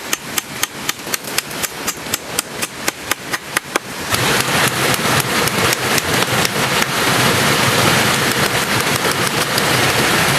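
Rain: rapid, regular tapping of water drops, about five a second. About four seconds in, a heavy downpour sets in as a dense, steady hiss.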